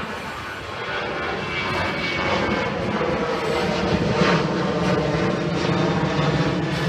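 Jet airliner on approach to land, its engines droning and growing louder as it nears.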